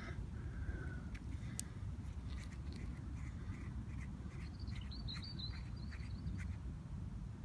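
Birds calling: a string of short calls and, about two-thirds of the way through, a thin high twittering, over a steady low rumble.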